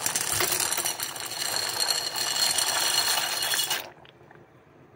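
Dry elbow macaroni rattling and sliding off a ceramic plate into a pot of boiling water, a dense clattering hiss that stops abruptly a little before the end.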